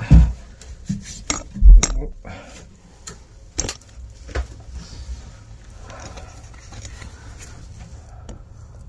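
Hard objects clinking and knocking, several sharp strikes and a couple of heavy thumps in the first half, then faint rustling.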